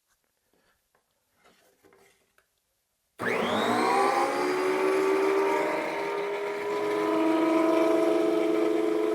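Electric planer switching on about three seconds in: its motor winds up quickly to a steady, loud whine with several tones. The pitch and tone shift slightly a few seconds later.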